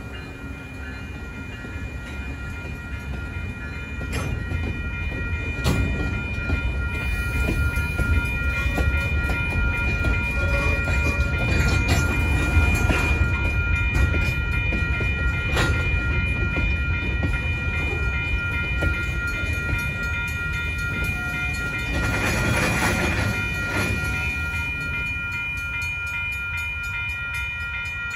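Freight train rolling slowly through a grade crossing. The wheels rumble and clack, louder once the cars follow the genset road-switcher locomotive, while the crossing's electronic bell, a Western-Cullen-Hayes e-bell, dings steadily. A louder, noisier stretch of passing cars comes near the end.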